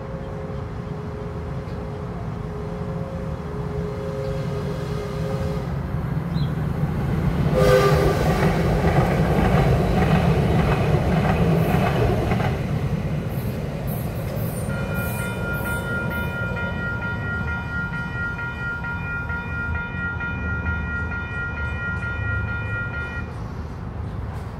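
DART light rail train passing through a grade crossing: a short horn blast about 7 to 8 seconds in, then the rumble and clatter of its wheels for several seconds. Afterwards a high bell ringing steadily at the crossing, stopping shortly before the end.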